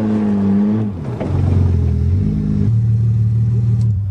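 1982 Toyota Cressida's engine heard from inside the cabin, its revs falling away up to about a second in, then picking up again and running steadily.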